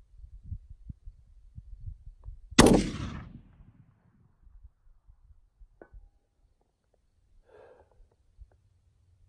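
A single shot from a gas-operated .308 rifle with a 16-inch barrel. It is a sharp crack about two and a half seconds in that rings out and dies away over about a second.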